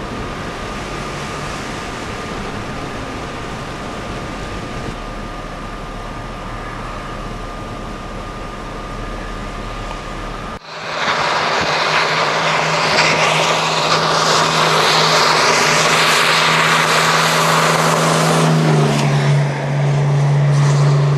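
Car driving, steady engine and road noise. About halfway it cuts to a much louder rushing wind and road noise with a low engine hum that drops in pitch near the end.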